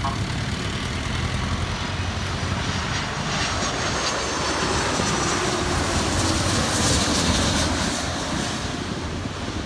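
Twin-engine widebody jet airliner flying low overhead on final approach with its landing gear down: steady jet engine noise that builds, is loudest about seven seconds in, then eases off.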